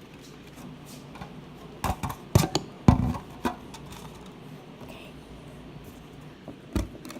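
Several scattered knocks and thumps, one loud bump about three seconds in, over quiet room tone.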